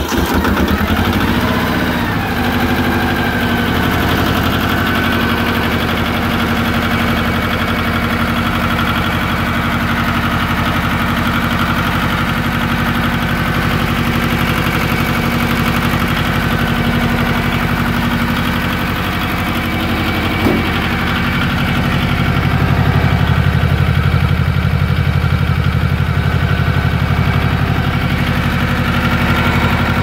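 Yanmar YM1500 compact tractor's diesel engine idling steadily just after a cold start, having caught right after cranking. It runs somewhat louder and lower from about three-quarters of the way through.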